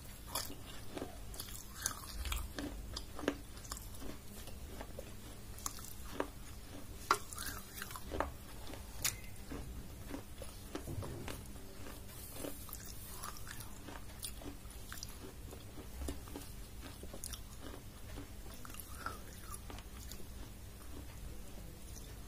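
Close-up chewing of crunchy food: sharp crunching clicks, frequent in the first half, giving way to quieter, sparser chewing.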